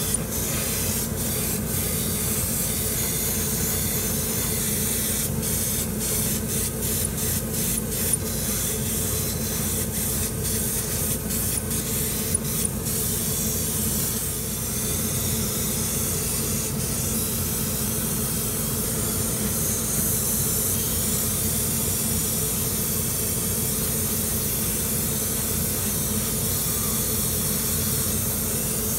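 Gravity-feed airbrush spraying paint: a steady hiss of air and paint over a steady low hum. In the first half the hiss breaks off briefly many times, then runs on unbroken.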